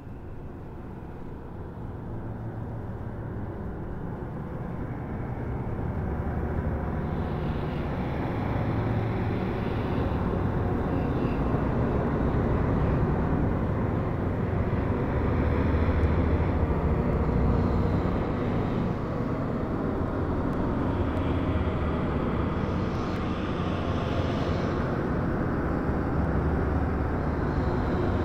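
Dark ambient drone of low, rumbling noise, like a distant aircraft, opening a black metal recording. It fades in and swells over the first ten seconds or so, with hissing washes rising and falling above it.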